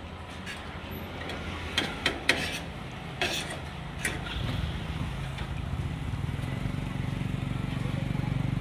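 Metal fork and spoon clinking and scraping against a plate several times in the first few seconds. From about four seconds in, a motor vehicle engine runs steadily close by, growing slightly louder.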